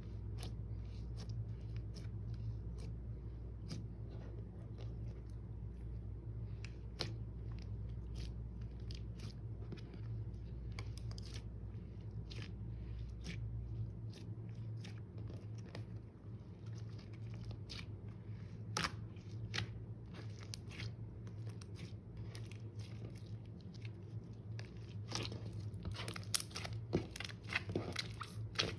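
Slime being mixed and kneaded by hand, giving off short sticky clicks, pops and crunchy crackles as it is folded and pressed, growing busier near the end. A steady low hum runs underneath.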